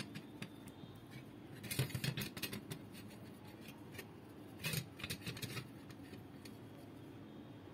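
A brush scrubbing stainless steel gas stove burner rings: faint, short scratchy strokes, bunched about two seconds in and again around five seconds.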